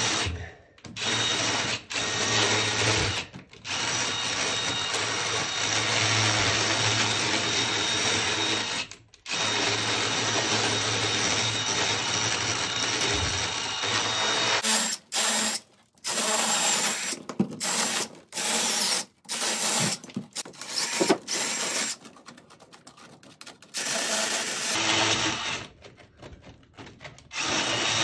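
Cordless drill with a masonry bit boring into compressed earth block, breaking out a pocket for an electrical outlet box. It runs in long stretches for the first half, then in short stop-start bursts.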